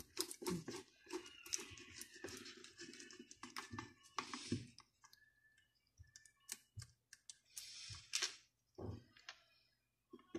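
Screwdriver working the screws out of a steam iron's plastic housing: many faint, irregular clicks and scrapes of the metal tip in the screw heads and against the plastic, with the tool tapping the casing as it is lifted out and set back in.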